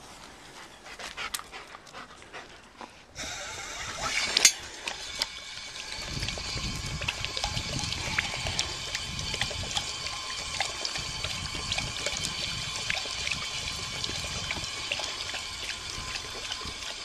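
Outdoor pedestal drinking fountain switched on, its water stream hissing steadily, with a sharp click a second after it starts. A German Shepherd then laps and slurps at the running stream, a steady run of wet lapping and splashing.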